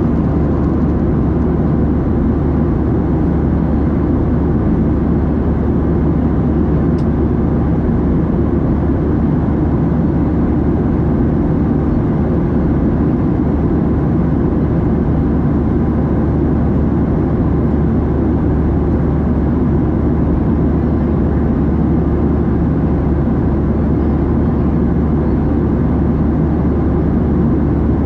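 Steady cabin drone of a Boeing 737-700 airliner: the CFM56-7B jet engines and airflow, a dense even noise strongest in the low range, with no changes.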